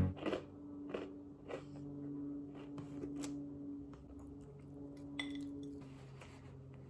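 Quiet room with a faint steady hum and a few soft clicks and taps from a plate being handled at a table while eating.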